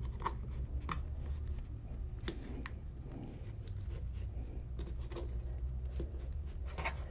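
Hands folding and rolling soft flour tortillas on a plastic meal tray: faint soft handling noises with scattered small taps and clicks, over a steady low hum.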